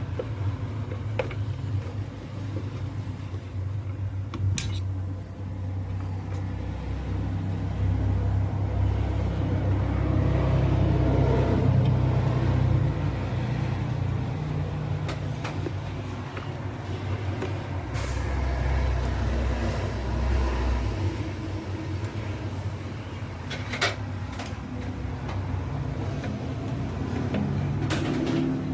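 Steady low mechanical rumble like a running engine, swelling louder around the middle, with a few sharp clicks or knocks.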